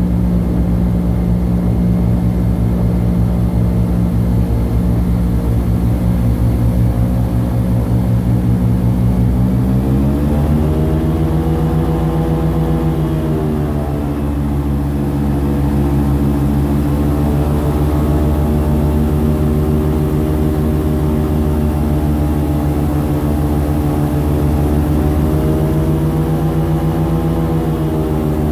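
Airboat's engine and large air propeller running loud and steady as the boat travels; about ten seconds in it revs up to a higher pitch and holds there.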